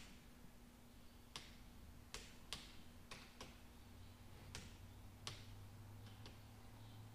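Torque wrench clicking as the follower guide bolts on a Detroit Diesel 2-53 cylinder head are torqued: about ten sharp, irregularly spaced clicks over a faint low hum.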